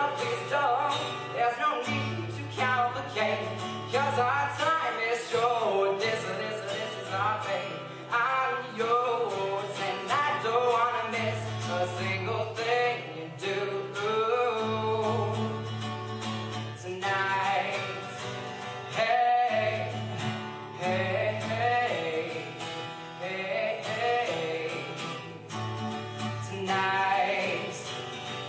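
Male voice singing over a strummed steel-string acoustic guitar.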